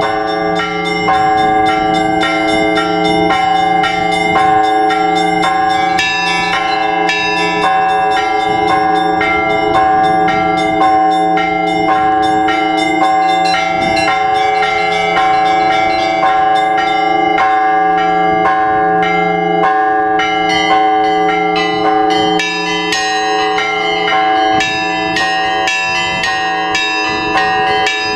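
Russian Orthodox church bells rung together by a bell ringer: small bells struck in a rapid, continuous rhythm over the steady hum of the larger bells.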